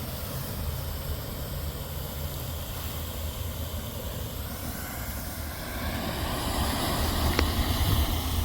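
Steady low vehicle rumble with a rushing noise that swells over the last few seconds, and one sharp click about seven seconds in.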